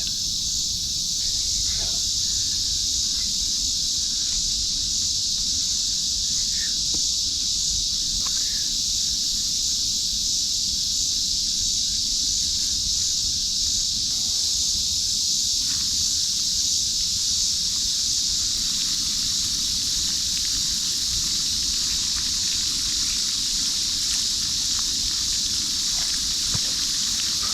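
Catfish fillets frying in a pan at camp: a crackling sizzle with small pops that builds from about halfway through, over a steady high-pitched hiss.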